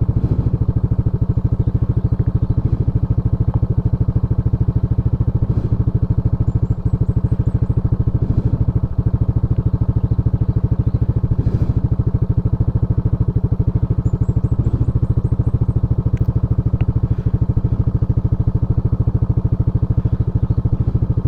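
Motorcycle engine running at a steady, unchanging pitch while riding, with a few light knocks.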